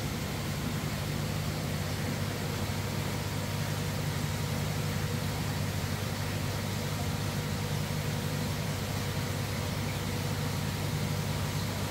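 Steady low machine hum with an even hiss, from running koi-tank equipment.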